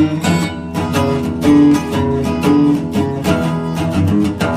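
Background music led by an acoustic guitar, plucked and strummed in a steady rhythm.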